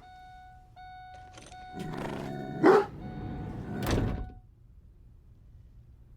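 A dog barks once, loudly, a little over halfway through the first half, over a steady held tone that breaks off briefly a few times. A low heavy thump follows about four seconds in.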